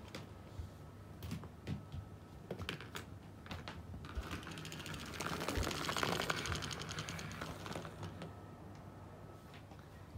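Motorized plush toy mouse clattering across a wooden floor: a fast rattle of clicks that swells to its loudest around the middle and then fades. A few separate clicks and taps come before it.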